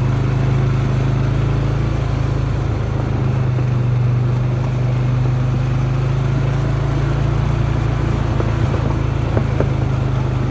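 Small off-road vehicle engine running steadily at low, even speed while descending a dirt trail, with a few short knocks near the end.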